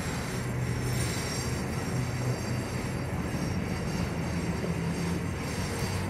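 Double-stack intermodal freight train's well cars rolling past, a steady continuous rumble of wheels on rail.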